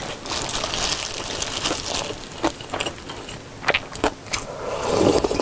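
Scooping broth from a bowl of janchi-guksu noodle soup with a wooden ladle: a rustling, splashing noise, then a few light clicks. Near the end comes a louder slurp as the broth is sipped from the ladle.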